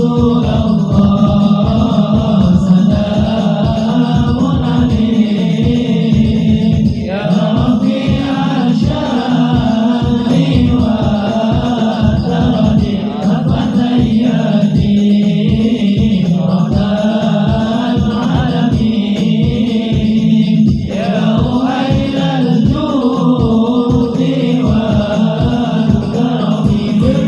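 Sholawat, Arabic devotional chanting of blessings on the Prophet, sung by voices in a melodic, chant-like line over a fast, steady percussion beat.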